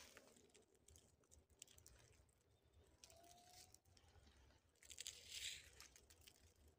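Near silence with faint crackles, then a brief rustle of dry grass stems about five seconds in.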